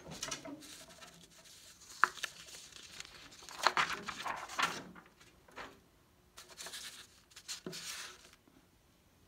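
Large sheets of paper being lifted and flipped over by hand, rustling and crinkling in several bursts, with a sharp tap about two seconds in.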